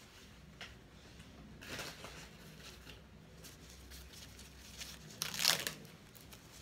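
Packaging being handled and rummaged through, rustling in two spells: a softer one about two seconds in and a louder one near the end, with a few small clicks.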